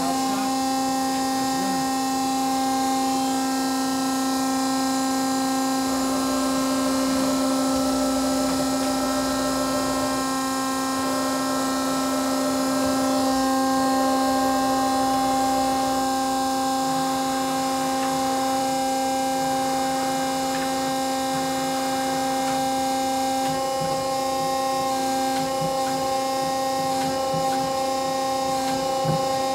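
1993 Mazak QT-15N CNC lathe running under power: a steady mechanical hum made of several held tones, with some of the higher tones dropping out and returning partway through.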